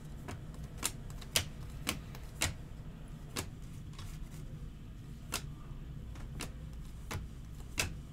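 Stiff chromium trading cards clicking as they are slid one by one from the front to the back of a hand-held stack. There are about ten sharp clicks at uneven gaps of half a second to a second, over a steady low hum.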